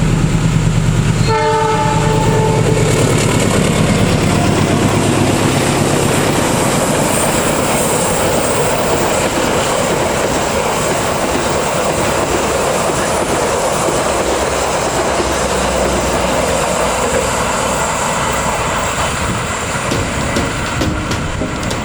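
Taksaka passenger train passing at speed: a short diesel locomotive horn note about a second in, with the engine's low drone, then the steady rush and wheel clatter of the carriages going by, easing slightly near the end.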